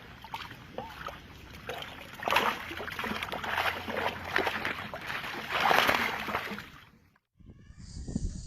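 Water splashing and sloshing in irregular bursts, loudest a couple of times, then cutting off abruptly about seven seconds in.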